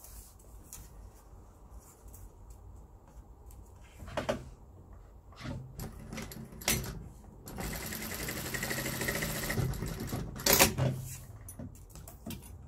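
Industrial sewing machine stitching the diagonal seam that joins two bias strips, running for about two seconds past the middle. Fabric rustles and handling clicks come first, and a sharp clunk follows just after it stops.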